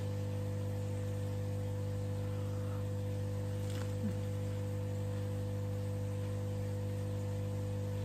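Steady electrical hum with several fixed tones, unchanging throughout, with a faint click a little before the middle.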